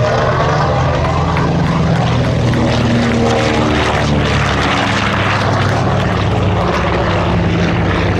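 A B-25 Mitchell's two Wright R-2600 Cyclone 14-cylinder radial engines running at takeoff power as the bomber lifts off and climbs past, with a loud, steady propeller drone. The engine note slides down in pitch around the middle as it goes by.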